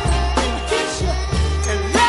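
1960s soul recording playing: a steady bass line under sliding melodic lines and bright sustained high tones.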